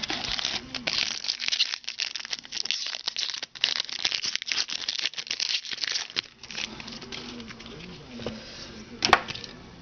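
Foil Topps Chrome card-pack wrapper crinkling as it is opened and handled: a dense crackle for about the first six seconds, then quieter rustling and one sharp click near the end.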